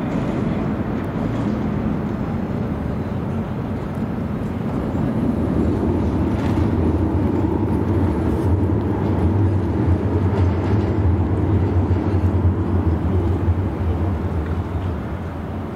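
Alstom Citadis tram passing on a bridge among car traffic: a steady low rumble that builds about five seconds in and eases off near the end.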